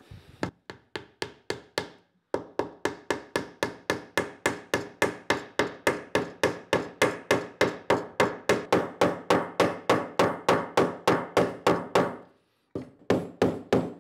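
Metal-headed hammer driving glued wooden wedges into the split tops of a stool's through-tenoned legs, wedging the legs tight in the seat. Rapid, even blows, about four a second, with a short pause about two seconds in and another near the end.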